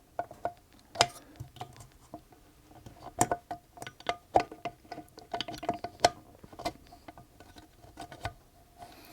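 Irregular small metallic clicks and taps, some with a brief ringing note, as the feed fork and roller are worked into place inside a Singer Featherweight 221K sewing machine.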